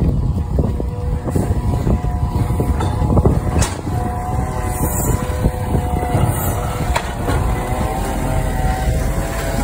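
A 2021 Iveco Stralis Euro 6 side-loader garbage truck's engine running close by, a steady heavy rumble. From about four seconds in, a steady whine of several tones rises above it.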